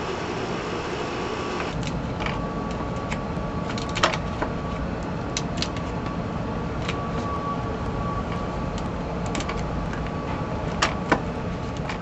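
Lock picks working in a lock: scattered small clicks, about ten in all at uneven intervals, over a steady background hum.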